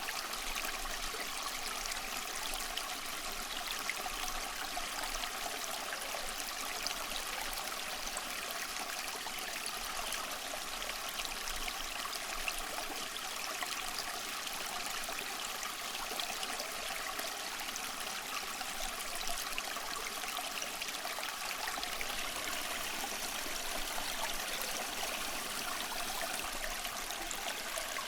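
Running water of a stream, flowing in a steady, even rush with no breaks.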